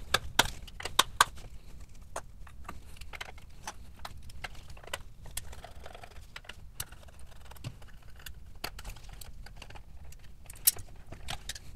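Irregular clicks and light rattles as a small screwdriver takes out the screws holding the charger's circuit board, and the plastic case and board are handled and lifted apart.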